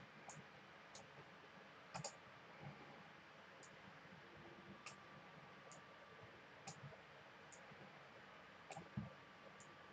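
Faint computer mouse clicks, about a dozen at irregular intervals of roughly a second, over quiet room tone.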